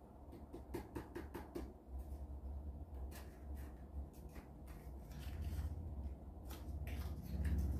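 Small clicks and taps of model-kit parts being handled and fitted into a miniature house, with a low rumble growing louder toward the end.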